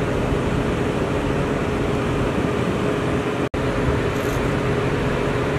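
Steady drone of idling fire-truck engines, with a constant hum running through it. It drops out for a moment about three and a half seconds in.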